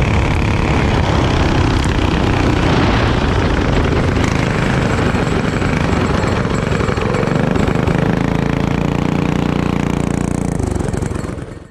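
Racing kart engine running, heard from the kart itself with rushing air noise, then settling to a lower, steadier note as the kart slows toward the pits; the sound fades out near the end.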